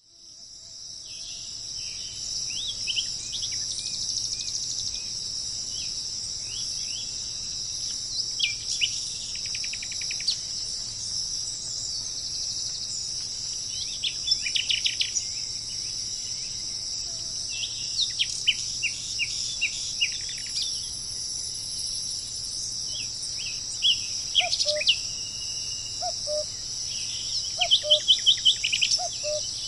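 A steady, high chorus of insects, with songbirds calling in short bursts every few seconds, several of them fast repeated trills. Toward the end a low, soft call repeats in short pairs of notes.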